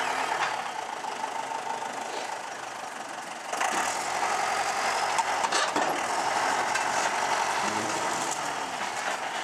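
John Deere tractor's diesel engine running as the front loader works. It gets louder and harsher about three and a half seconds in, as the loader lifts, and there is a single knock a couple of seconds later.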